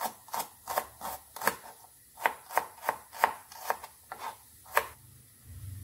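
Kitchen knife slicing shallots on a plastic cutting board: a run of sharp chops, about three a second, with a short pause near two seconds in. The chopping stops shortly before the end.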